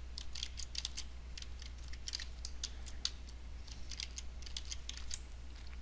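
Typing on a computer keyboard: a run of quick, unevenly spaced key clicks, over a low steady hum.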